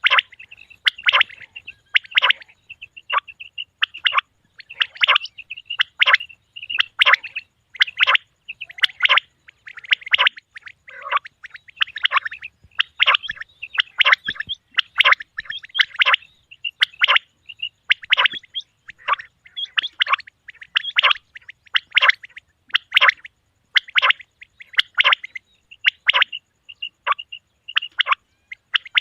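Male common quail (batair) calling over and over: short, sharp, high notes, about one to two a second.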